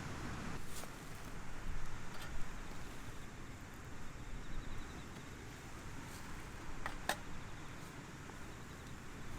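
Strong wind buffeting the microphone with an uneven low rumble, and a few light clicks: one about a second in, one about two seconds in, and two close together near seven seconds.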